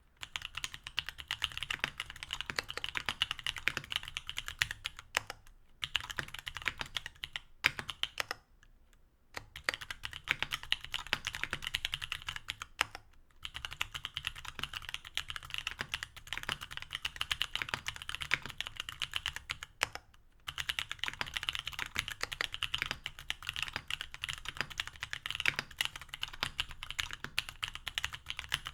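Continuous fast typing on a mechanical keyboard with C³Equalz X TKC Kiwi tactile switches (67 g, stock), an aluminum plate and GMK keycaps: a dense run of keystroke clacks, broken by a few short pauses.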